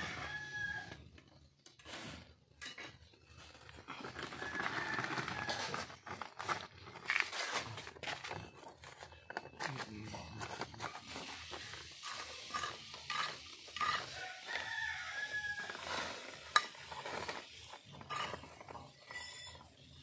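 A rooster crows near the start and again about three-quarters of the way through, over scraping, patting and rustling as hands and a small trowel pack soil into a plastic polybag.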